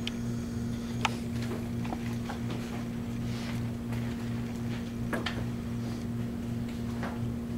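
Steady low electrical hum of a room, with a few scattered sharp clicks and taps. A faint thin squeak of a dry-erase marker on a whiteboard in the first second.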